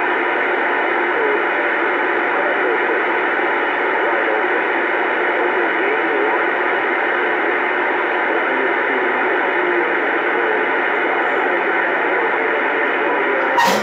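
Uniden Bearcat 980 CB radio receiving on channel 28: a steady hiss of AM band static with faint, wavering, garbled voices under it. Near the end comes one sharp crack, after which the hiss drops for a moment.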